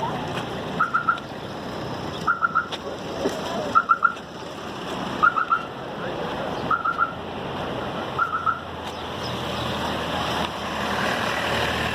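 An electronic beeper sounds quick groups of three high beeps about every one and a half seconds, six times, then stops. Under it runs a steady wash of background noise that grows louder near the end.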